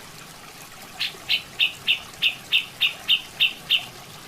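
Grey-cheeked bulbul (cucak jenggot) calling: a run of about ten short, sharp, high notes, evenly spaced about three a second, starting about a second in.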